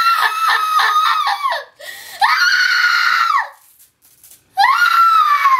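A woman screaming in terror, acted for a film scene: a long, wavering high scream, then two more held screams with short pauses between.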